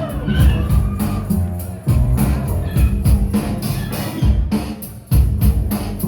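Live rock band playing a song's instrumental intro, with no singing: a drum kit keeps a steady beat with crisp cymbal or hi-hat strokes over a heavy low bass line. The low end drops back briefly and comes back in hard about two seconds in and again about five seconds in.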